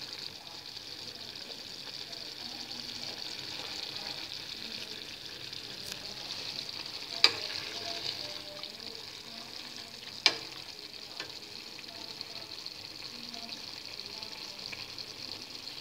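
Pot of broccoli and vegetable stew sizzling on the stove, a steady hiss, broken twice a little past the middle by a sharp click.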